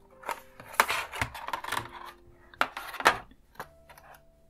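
Plastic and cardboard packaging being handled: a clear plastic tray slid out of a cardboard box and set down, with rustling and a few sharp clicks and taps, the loudest about a second in and about three seconds in.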